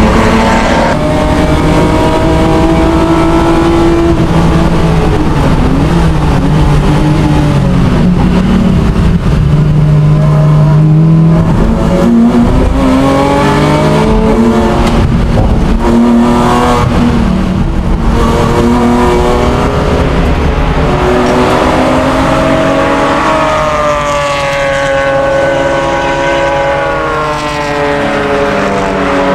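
Racing car engine at full throttle on a circuit, its pitch climbing through each gear and dropping again at the shifts and under braking.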